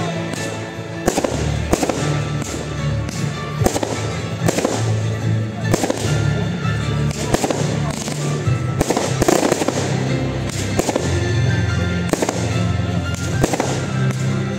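Aerial fireworks going off, sharp bangs and crackling bursts about once a second, over music with sustained bass notes.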